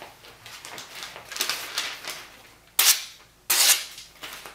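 Thin phone book paper rustling and being sliced by a freshly sharpened and deburred knife edge, in a few short, crisp strokes. The edge cuts smoothly, the sign of a sharp edge with the burr removed.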